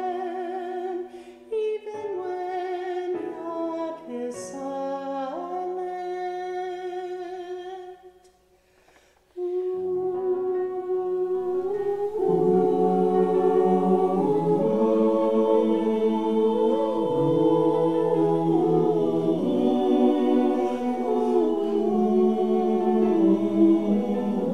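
A woman singing solo, breaking off briefly about eight seconds in. About twelve seconds in, a choir of mixed men's and women's voices joins her, fuller and louder.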